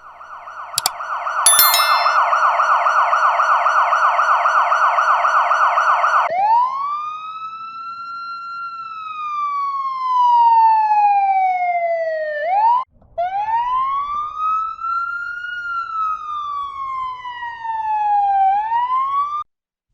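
Electronic emergency-vehicle siren in the American style: a fast warbling yelp for about six seconds, then switching to a slow wail that rises and falls twice, with a brief break between the two cycles. Two sharp clicks sound in the first two seconds, and the siren cuts off just before the end.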